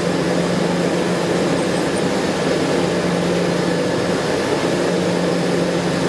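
Large planetary cooking mixer running: a steady machine noise with a low hum as its stirring arms turn chopped vegetables in the stainless steel pan.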